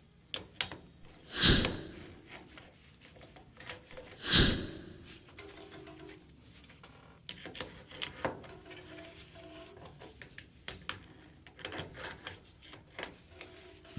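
Two loud, short knocks about three seconds apart, amid scattered small clicks and taps of hands and tools at work.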